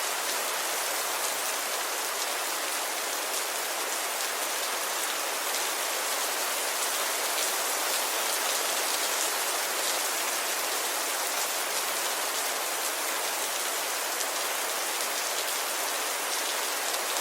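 Steady rainfall, an even hiss of many drops with fine patters, holding constant throughout.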